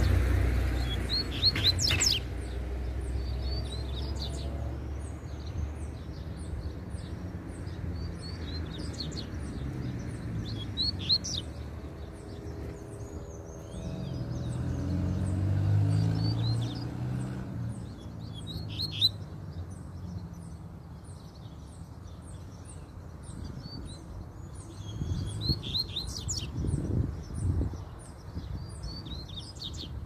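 Double-collared seedeaters (coleiros) singing in short phrases of quick high notes every second or two, with a faint, very high ticking about twice a second behind them. A low rumble swells and fades about halfway through.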